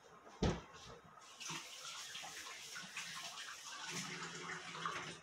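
A single thump, then a kitchen tap runs into a sink as a steady splashing hiss for about four seconds and is shut off abruptly.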